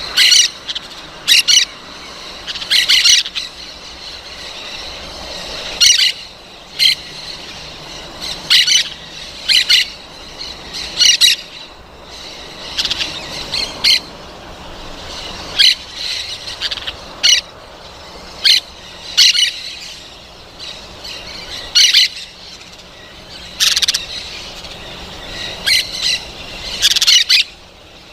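Parrots squawking: short, harsh calls repeated every second or two, sometimes in quick pairs.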